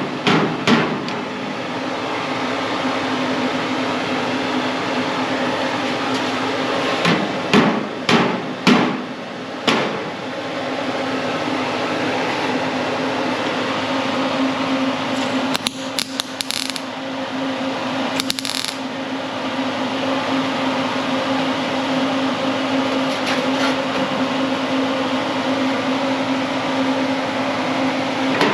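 A few sharp hammer strikes on fender sheet metal in the first ten seconds, then a steady mechanical hum.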